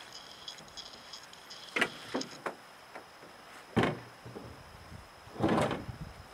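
A canoe being set down at the water's edge off a rocky portage landing: a few knocks of the hull on rock, the loudest about four seconds in, then a longer rough sound near the end as it is shifted into the water.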